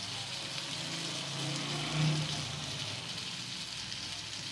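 Steady sizzle of green chillies and gram flour frying in ghee in a pan, with a slight swell about two seconds in as lemon juice is squeezed into the hot fat.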